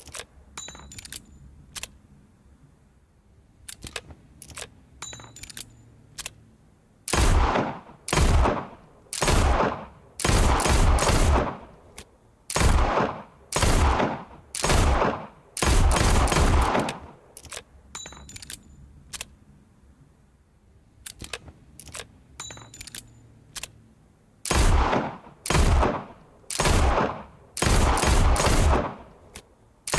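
Revolver gunshots fired one after another, roughly a second apart, each with a short echoing tail. They come in two strings, about seven seconds in and again near the end. In the quiet spell between them there are only a few small sharp clicks.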